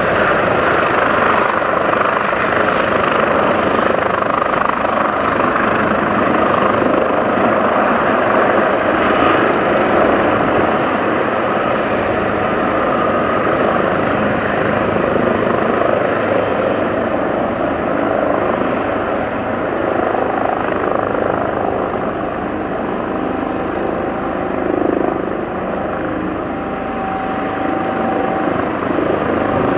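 Airbus Helicopters EC145T2 (BK117D-2), with twin turboshaft engines, five-blade main rotor and shrouded Fenestron tail rotor, in a low hover and setting down on a helipad. Engines and rotors run loud and steady, a little quieter in the last third.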